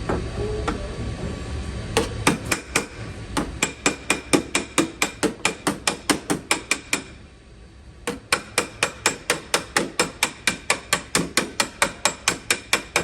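Body-repair hammer tapping a car's sheet-metal quarter panel to reshape it: two runs of quick, even strikes, about four a second, each with a short metallic ring, broken by a pause about seven seconds in.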